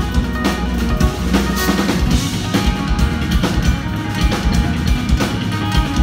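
Live instrumental progressive metal from two eight-string guitars and a drum kit: dense kick and snare hits over low, sustained guitar notes, the low notes breaking into a choppier rhythm about two seconds in.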